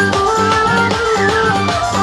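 Instrumental break in Bengali Baul folk music: a violin plays a sliding melody over a steady bass line and drum beat.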